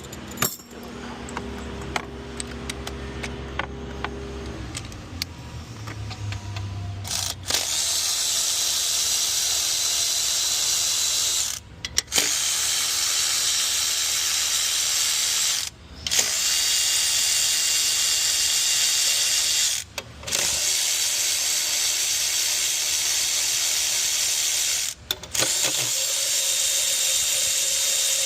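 Power tool spinning out the bolts of a 6.7L Cummins intake plate: after a few seconds of quieter handling, it runs in steady high-pitched stretches of about four seconds each, with brief stops between bolts.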